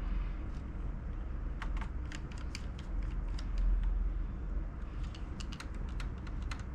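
Quick, irregular small plastic clicks and taps as laptop parts and case pieces are handled and fitted, in two flurries, over a steady low hum.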